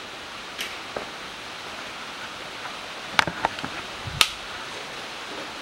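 A few sharp clicks or taps over a steady background hiss, the two loudest about three and four seconds in.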